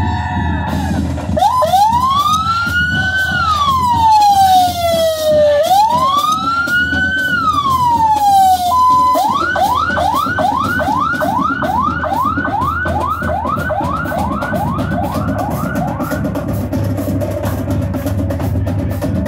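Emergency vehicle's electronic siren sounding two slow rising-and-falling wails, then a brief steady tone and a fast yelp of about two and a half sweeps a second that stops a few seconds before the end, over a low steady background rumble.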